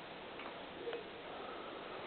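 A sleeping pet's quiet breathing in the pause between snores, with two faint clicks about half a second apart near the start.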